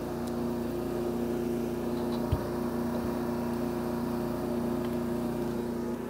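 A steady machine hum with two strong held tones, and a single soft knock a little over two seconds in.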